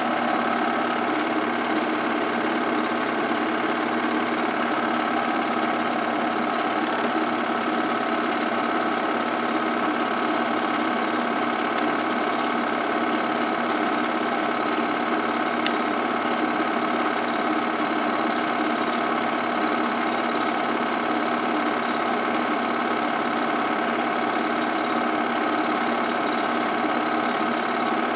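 Film projector running steadily, its mechanism giving a constant whirring clatter.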